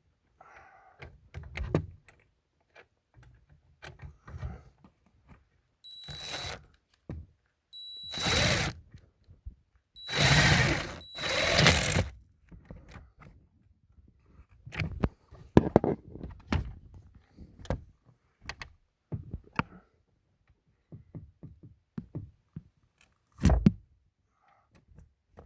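Knocks and clunks of tools and parts against the steering column, with four short bursts of a cordless impact wrench running in a 10 mm bolt on a long extension.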